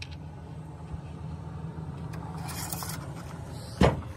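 Steady low mechanical hum in the background, with a brief rustle about halfway through and a single sharp knock near the end.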